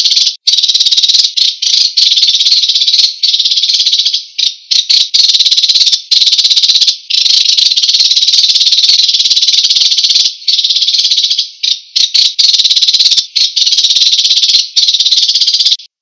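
A sparrow's rapid, dry trill, sung in long, almost unbroken runs with short breaks every second or two, stopping abruptly near the end.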